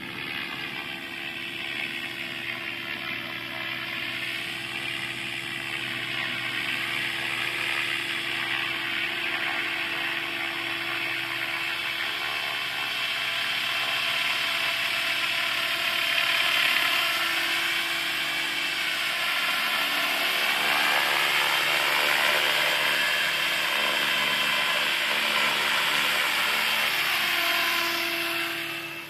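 MSH Protos 500 electric RC helicopter in flight: a high motor and gear whine with rotor noise, its pitch wavering up and down as the head speed changes through the manoeuvres. It grows louder as the model comes closer and drops away sharply near the end.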